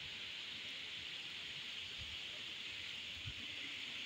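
Steady hiss of falling rain, with a few faint low bumps.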